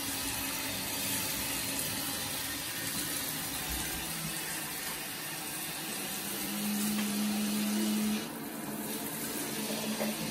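Handheld shower head spraying water onto a malamute's thick coat in a bathtub, a steady hiss of running water. A low steady hum joins about six and a half seconds in.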